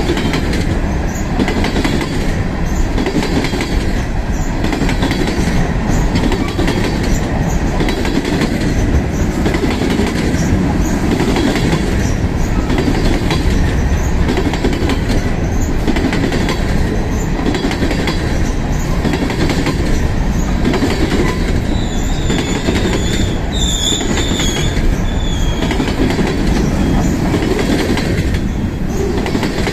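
Ferromex freight train's cars rolling past close by: a steady heavy rumble with wheels knocking over rail joints a little more than once a second. About three-quarters of the way through, a brief high wheel squeal as the train comes out of a curve.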